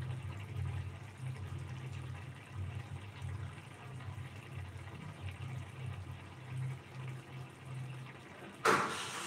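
Thick egg curry gravy simmering in a frying pan, bubbling with irregular low blips. A sudden loud rushing noise breaks in near the end.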